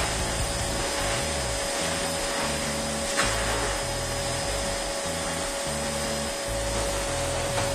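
Philips Series 3000 bagged vacuum cleaner's 900 W motor running steadily: a constant rushing noise with a steady whine, and a single sharp knock about three seconds in. Music with a stepping bass line plays underneath.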